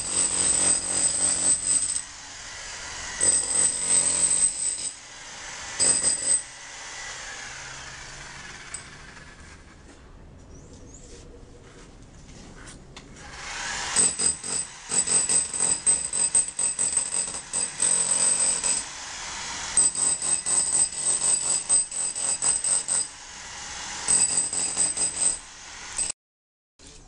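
Hammer striking a steel chisel into a plastered masonry wall, cutting out the cracks for repair: rapid ringing metal-on-metal blows in bursts of a few seconds, with a quieter spell in the middle. The sound breaks off abruptly just before the end.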